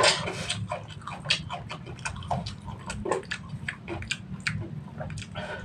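Close-up eating sounds of a man chewing instant noodles: irregular wet smacks and clicks, the loudest right at the start, with the fork clinking against the wok as he scoops, over a steady low hum.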